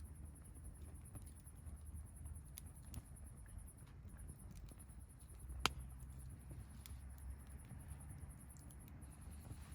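Wood campfire burning, with scattered small crackles and one sharp pop about five and a half seconds in.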